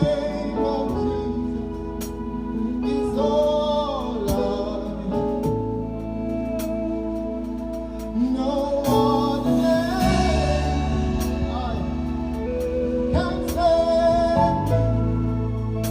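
Gospel worship music: a voice singing over a band, with held low bass notes and light percussion ticks.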